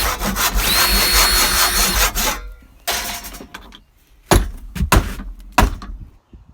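Power tool motor spinning up to a steady high whine and running for about two seconds, then stopping. After it come three or four sharp knocks about half a second apart.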